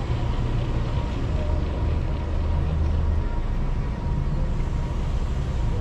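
Car engine and road noise heard from inside the cabin: a steady low rumble while driving slowly.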